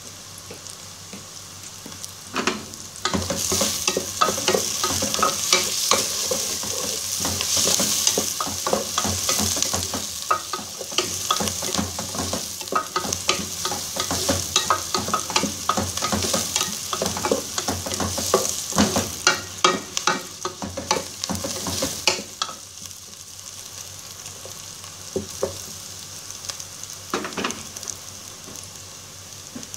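Diced onions sizzling in hot oil in a metal pot. A spatula stirs them, scraping and tapping the pot, from a couple of seconds in until about two-thirds of the way through. After that the sizzle goes on more quietly, with a couple of taps near the end.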